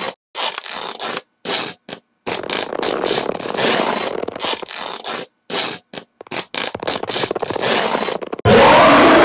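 Cloth-ripping sound effects: a rapid series of short, harsh tearing rips one after another as clothing bursts apart. Near the end a louder continuous sound takes over.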